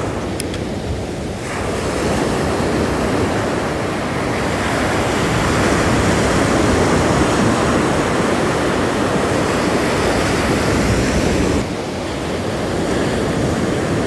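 Ocean surf breaking and washing up a sandy beach close by, a steady rushing that swells a second or so in and drops off suddenly near the end.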